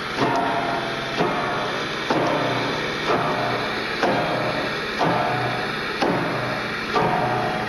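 Piano keys struck about once a second, each stroke sounding a cluster of notes that rings and fades before the next, with the pitches shifting from stroke to stroke.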